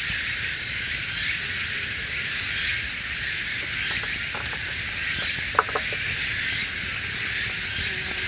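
Steady chorus of summer insects, an even high hiss-like drone. A single sharp snap about five and a half seconds in, with a few faint clicks before it.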